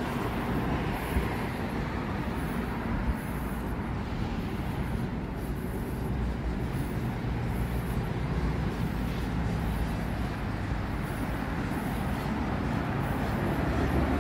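Steady road traffic noise: vehicles running past with a low rumble, and two faint knocks in the first few seconds.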